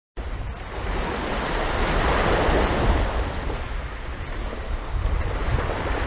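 Ocean waves and wind: a steady rushing noise that starts suddenly and swells about two to three seconds in.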